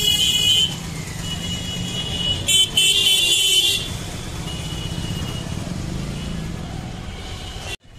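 Street traffic with a steady low rumble of engines, and vehicle horns honking twice, near the start and again about three seconds in.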